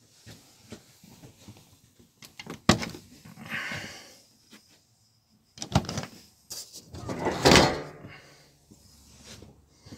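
Eriba Touring caravan's pop-up roof being pushed up by hand: sharp knocks from the roof frame and its lifting arms, with scraping and rustling of the roof and its fabric sidewall, loudest about three-quarters of the way through.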